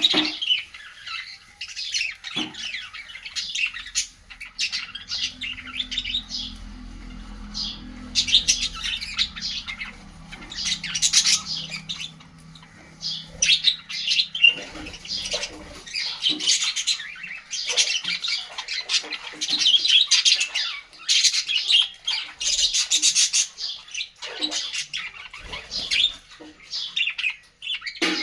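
Small pet parrots chattering with rapid, continuous squawks and chirps. A low steady hum runs underneath from about five to sixteen seconds in.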